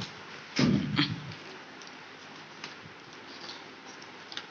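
Papers and a backpack being handled as the papers are pushed into the bag: a short rustle and bump about half a second in, then faint scattered rustles and light clicks.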